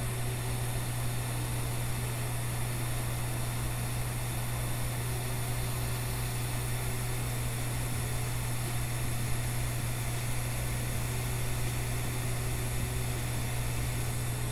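Hot air rework station blowing a steady rush of hot air over a low hum, heating the solder under the TriStar charging IC so the old chip can be lifted off.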